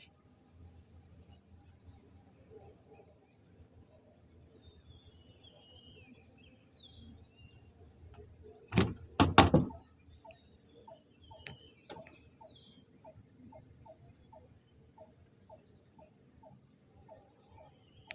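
Insects chirping: a steady high trill with short pulses repeating about twice a second. About nine seconds in comes a loud rasping burst lasting about a second, and after it a regular low ticking about twice a second.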